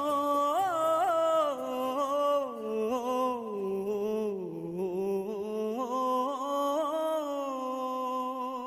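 Background music: one slow, wordless melodic line of long held, wavering notes like humming or a sung chant, sinking in pitch midway and rising again near the end.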